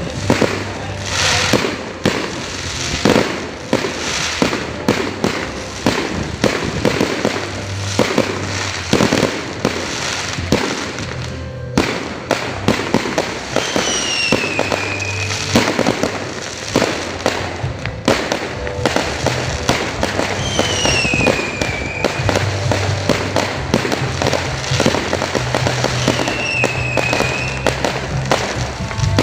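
Fireworks going off in a long, dense run of bangs and pops, with a short falling whistle heard three times, over background music.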